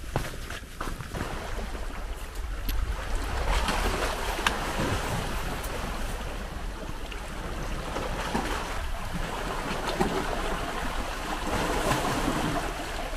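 Small sea waves washing over a rocky shore, rising and falling, with wind rumbling on the microphone. A few footsteps on a stony path are heard in the first second.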